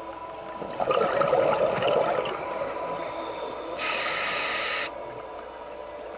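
Scuba regulator breathing heard underwater through the camera housing: a gurgling rush of exhaled bubbles about a second in, lasting about a second and a half, then a short hiss of an inhalation through the regulator about four seconds in.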